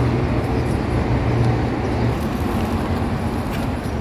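A steady low mechanical rumble and hum, like a vehicle or machine running nearby, with a deeper hum that drops away about halfway through.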